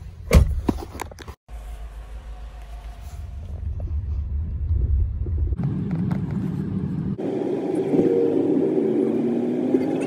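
Car cabin noise while driving: a steady low rumble of engine and road that grows louder from about three seconds in. A few sharp knocks sound in the first second.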